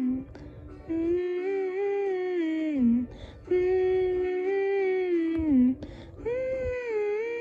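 A woman humming a song's melody with a closed mouth, in three long held phrases, each ending with a slide down in pitch.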